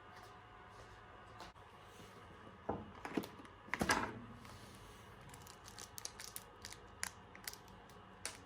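Quiet handling sounds: a short cluster of rustling and knocks about three seconds in, then a scatter of light clicks and taps.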